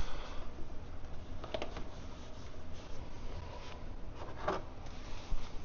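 Faint rubbing and two light clicks of hand tools and parts being handled, a wrench working on the oil filter housing cap, about a second and a half in and again near the end.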